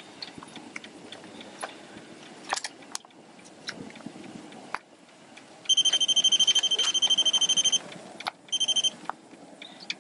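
Rapid electronic beeping, about ten high beeps a second, for about two seconds past the middle, then a brief second burst after a short gap. Scattered small clicks and knocks come before it.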